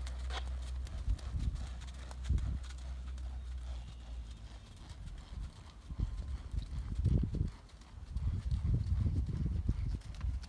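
Hoofbeats of a horse loping on the soft dirt of a round pen, coming in uneven clusters of low thuds that grow heavier over the second half, over a steady low rumble in the first few seconds.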